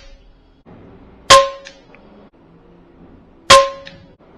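Two sharp metallic clangs about two seconds apart, each with a brief ringing note at the same pitch.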